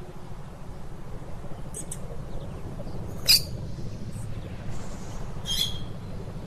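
Lovebird giving a few short, shrill chirps: a quick pair near two seconds in, the loudest call about three seconds in, and another near the end, over a steady low hum.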